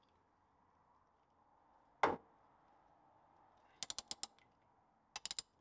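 Socket ratchet on the top swivel pin bolts of a Land Rover Series 2 front axle swivel housing: one sharp knock about two seconds in, then two short runs of quick ratchet clicks, about five and then about four.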